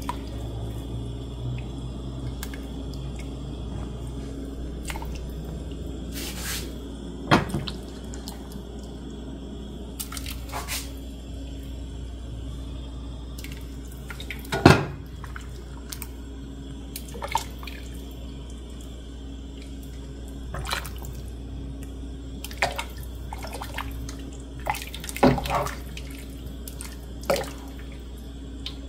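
A ladle scooping chicken soup from a stockpot into a bowl: broth dripping and pouring, with sharp knocks of the ladle against the pot and bowl every few seconds. A steady low hum runs underneath.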